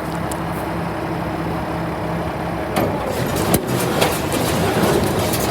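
Engine running steadily at idle. From about three seconds in, a few sharp knocks and a louder mechanical clatter join it.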